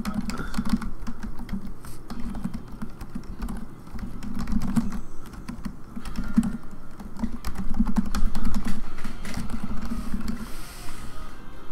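Typing on a computer keyboard: irregular runs of quick key clicks.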